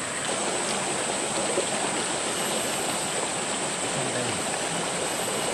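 Rainforest stream flowing, a steady rush of water.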